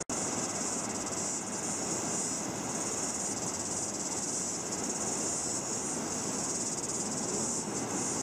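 A steady, high insect chorus with a few brief dips, over the low wash of surf breaking on the beach; the insect sound cuts off suddenly at the end.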